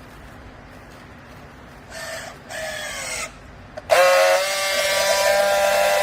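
Two short pitched tones, each falling slightly in pitch, about two seconds in, then a loud, steady tone with many overtones from about four seconds in that cuts off suddenly near the end, over a low steady hum.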